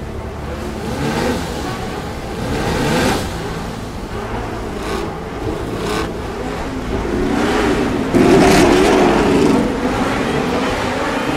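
Several 1970s Formula One race car engines revving on the starting grid, their pitch rising and falling in overlapping glides. A louder surge of revving comes about eight seconds in.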